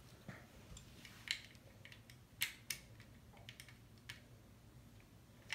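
Faint, scattered clicks and taps of plastic LEGO pieces being handled and pressed into place, a few sharper clicks a little over a second in and around two and a half seconds in.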